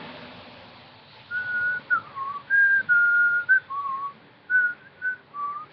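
A person whistling a tune through pursed lips: a string of clear, separate notes stepping up and down, starting about a second in.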